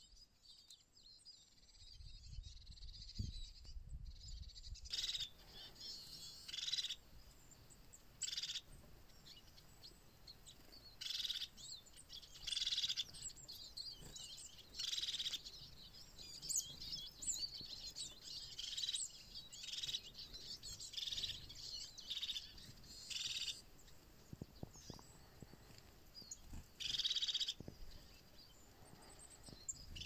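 Crested tit calling: short, high, trilled calls repeated every second or two from about five seconds in. Before the calls start there is a low rumble.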